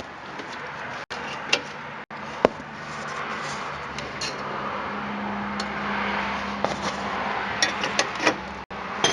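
Metal hand tools clicking and clinking against engine parts during engine disassembly: a few separate sharp clinks, one strong one near the start and a short cluster near the end, over a steady background hiss.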